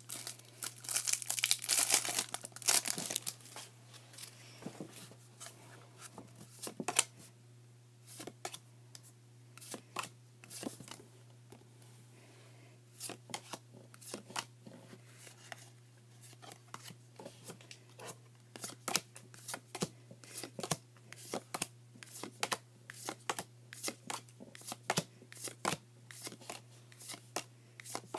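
Foil booster pack wrapper crinkling and tearing open for the first few seconds, then a long run of short clicks and slides as Magic: The Gathering cards are flicked one by one through the hands.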